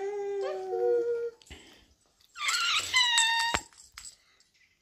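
A young child's wordless vocal sounds: a drawn-out tone lasting about a second, then after a short pause a higher, squealing tone of about a second.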